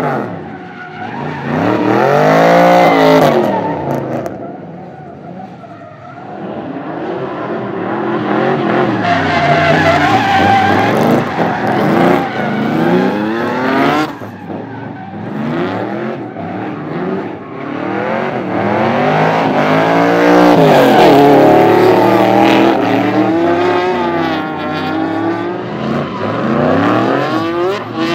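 Chevrolet LSX 454 V8 in a drifting BMW M3 E36 revving hard, its pitch climbing and dropping again and again, with tyres squealing and skidding on the asphalt.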